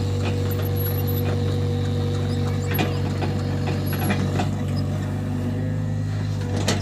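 Excavator engine running steadily, with scattered clicks and knocks from the working machine.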